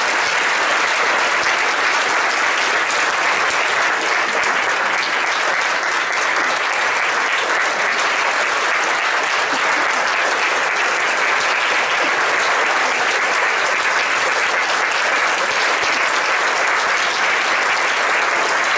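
A large audience applauding, a dense, steady clapping that neither builds nor fades.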